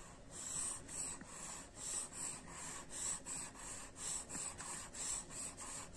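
Pencil scratching across paper in quick back-and-forth hatching strokes, about two to three strokes a second.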